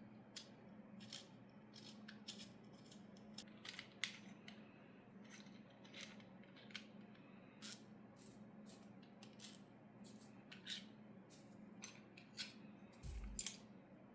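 Faint, irregular clicks and light taps of small hardware being handled as a holster hanger is taken apart, its mounting screws removed and the parts set down, over a steady low hum. A soft bump comes near the end.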